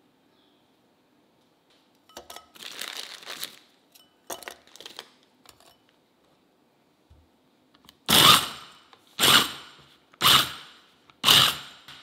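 A small electric food chopper pulsed four times, about once a second, its motor and blade grinding Biscoff cookies into crumbs in a glass bowl. Before that, a few seconds of rustling and clattering as the cookies and bowl are handled.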